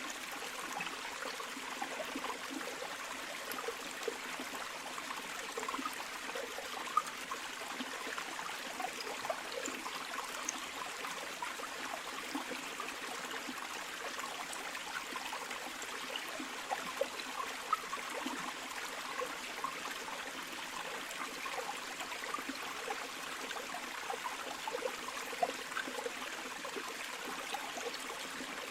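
River water flowing steadily over stones, a continuous rushing with small splashes and gurgles.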